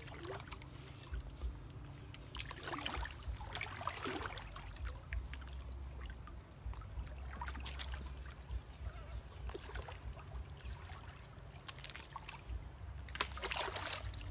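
Shallow stream water splashing and sloshing in irregular bursts as a wooden stick is pushed and pulled through it, over a steady low rumble.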